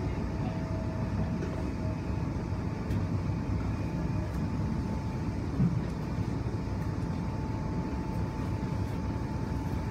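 Electric train running on the track, heard from inside the carriage: a steady low rumble of wheels on rail. A faint steady whine joins about four seconds in, and there is a single knock a little after five seconds.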